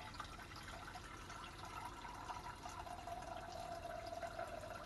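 Water pouring into a stainless steel saucepan, filling it with a steady stream and a faint ringing tone from the pan.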